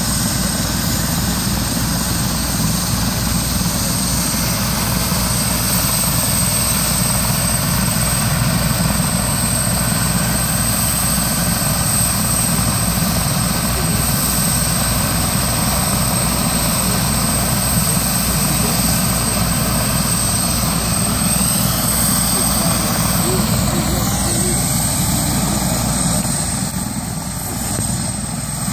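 Medical helicopter running at takeoff power: a steady rotor beat with a constant high turbine whine. A tone slides down partway through, and the loudness dips briefly near the end.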